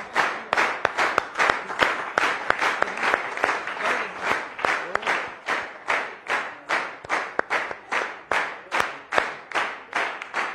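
Studio audience clapping in unison to a steady beat, about two and a half claps a second.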